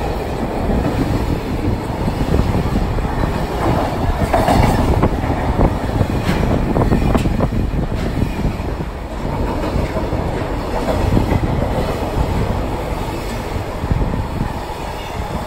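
Container wagons of a freight train passing close by: a steady heavy rumble with wheels clattering over the rails, and a few sharper clacks about four to seven seconds in.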